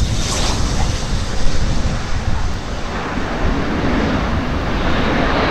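Gulfstream G450 business jet's twin Rolls-Royce Tay turbofans during the landing rollout, largely masked by heavy wind buffeting on the microphone. A broad rushing jet noise swells from about three seconds in.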